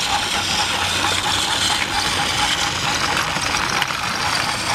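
Battery-powered Trackmaster Thomas toy engine running along plastic track, a steady whirr from its small motor and gears.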